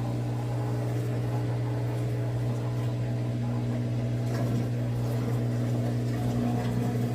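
Samsung washing machine's drain pump running with a steady hum, pumping the water out. With its clogged coin trap just cleaned, the pump is draining normally.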